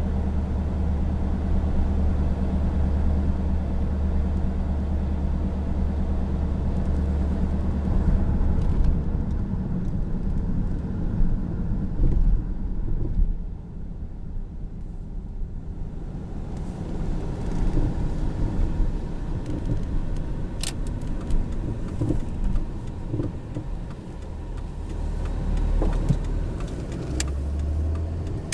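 Car road noise heard from inside the cabin while driving: a steady low drone of engine and tyres that dips quieter for a couple of seconds about halfway through. A few sharp clicks sound in the last third.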